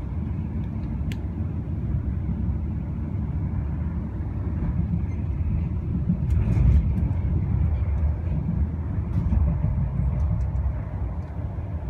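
Passenger train running along the track, heard from inside the carriage: a steady low rumble that swells louder about six seconds in, with a few faint clicks.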